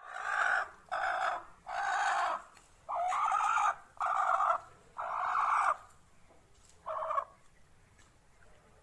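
Broody hen calling: six drawn-out calls about one a second, then one shorter call after a pause.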